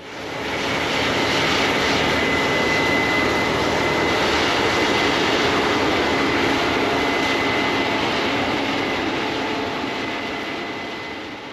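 Combine harvester running steadily under load, a loud even noise with a thin high whine held on one pitch. It fades in at the start and fades out near the end.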